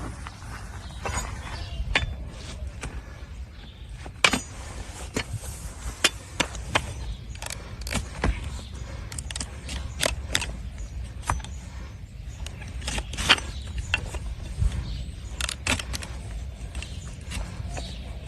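Hoof-trimming tools cutting and scraping a donkey's hard, overgrown hoof: irregular sharp clicks and scrapes, with a low steady rumble underneath.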